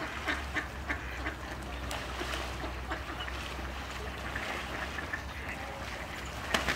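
A flock of mallard ducks quacking on a pond, with many short quacks scattered throughout and one sharper, louder quack near the end, over a low steady rumble.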